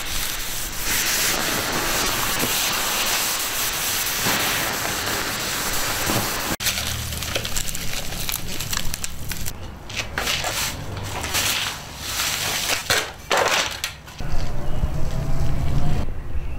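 Smouldering sugar-snake pans being doused: a steady hiss for about six and a half seconds as water goes on, then, after a sudden break, sand poured from a foil pan into the water-filled pans, rustling in uneven bursts.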